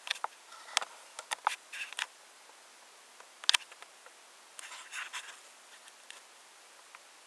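Scattered light clicks and scratching of small plastic parts being handled: a toy bullet train and its passenger cars being handled before its first run, with its motor not yet switched on. The sharpest click comes about three and a half seconds in.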